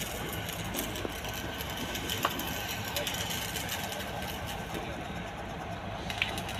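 Engine of heavy construction machinery running steadily at idle, with indistinct voices of workers and a sharp knock about two seconds in.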